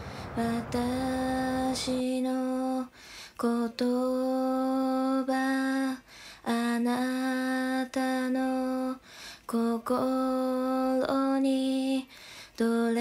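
A woman singing a slow melody unaccompanied, in long held notes broken by short pauses between phrases.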